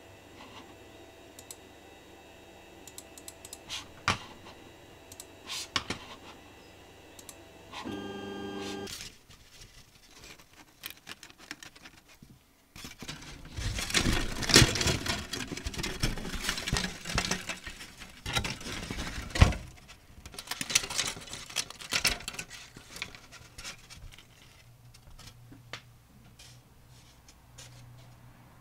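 Laser-cut XPS foam subflooring sheet crackling and snapping as the cut-out pieces are pressed free by hand. It comes as a dense run of sharp clicks lasting about ten seconds, after scattered single clicks and a short tone near the start.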